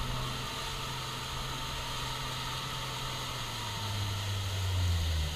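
Motorboat engine running with a steady low drone under a hiss of wind and rushing water; about four seconds in the drone drops in pitch and grows louder.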